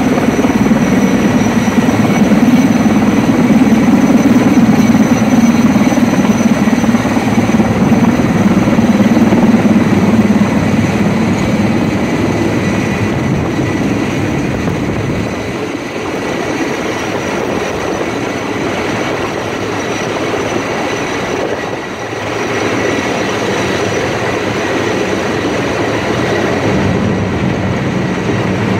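Sikorsky S-64 Skycrane heavy-lift helicopter hovering low overhead with a slung load: loud, steady rotor and turbine noise, with a faint high turbine whine over it. The noise is loudest for the first ten seconds or so, then eases as the helicopter climbs away.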